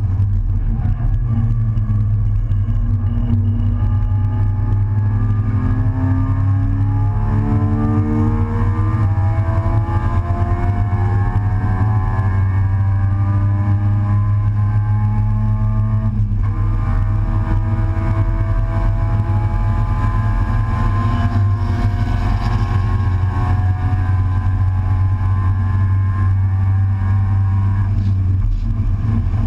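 Race car engine at racing speed, heard from inside the open cockpit, its pitch climbing steadily for much of the first half. About sixteen seconds in it breaks off briefly, as at a lift or a gear change, then climbs again, all over a steady low rumble.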